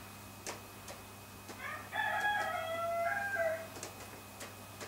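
Soft irregular pops as a tobacco pipe is puffed alight. Midway through comes a louder, drawn-out pitched call of about two seconds, like a crow: it rises, then holds and falls slightly.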